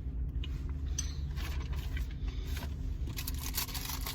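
Close-up chewing and biting of a Reuben sandwich on rye, with scattered crunchy clicks and a denser crackle of rustling near the end, over a steady low rumble.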